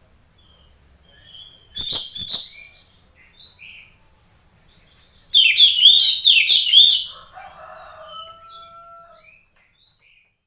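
Oriental magpie-robin (kacer, black-and-white poci type) singing: two loud bursts of rapid, sweeping whistled phrases about three seconds apart, with soft scattered chips between them.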